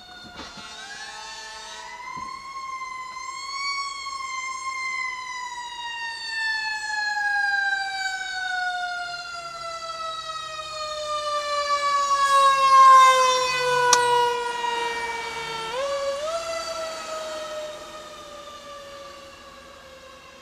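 Fire engine siren wailing. It rises over the first few seconds, falls slowly in pitch for about ten seconds, and climbs again near the end. It is loudest a little past the middle as the truck comes close.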